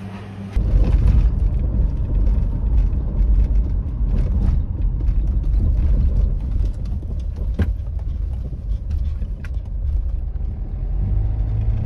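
A car on the move, heard from inside the cabin: a heavy low rumble of road and engine noise that swells in about half a second in. Scattered knocks and rattles come through as the car jolts over a rough, bumpy road.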